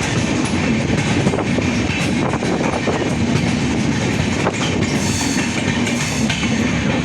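Train running on the rails: a steady, loud rumble with frequent clicks from the wheels on the track.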